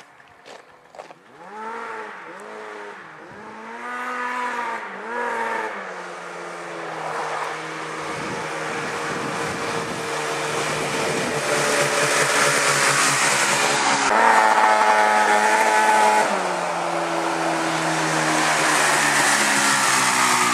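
Homemade dune buggy engine revved in several quick blips, then running steadily and growing louder, its pitch stepping up and then down a couple of times near the end.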